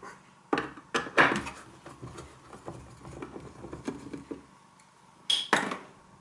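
Sharp plastic clicks and knocks from handling the parts of an opened Triton Enrich electric shower with a screwdriver: a few within the first second and a half, light scattered ticks in the middle, and two louder knocks near the end.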